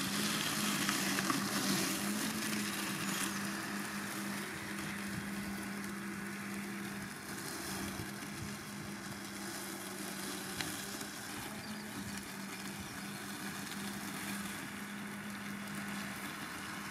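Mammotion Luba 2 robotic lawn mower driving over tall grass, its electric motors giving a steady hum at one pitch over a soft hiss.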